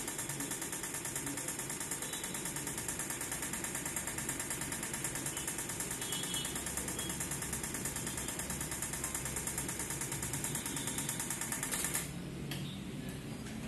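Short-killer bench power supply firing its trigger pulses at 60 V into a shorted LCD panel line: a rapid, even ticking buzz that stops abruptly about 12 seconds in. The pulses are burning out an internal short in the panel.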